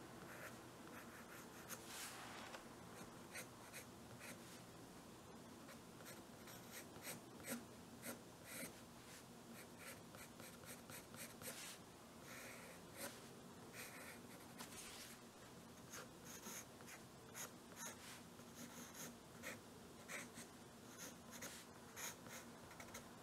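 Soft graphite pencil scratching on drawing paper in many short, light strokes, several a second, as the outline of a tulip's stem and leaves is sketched. Faint.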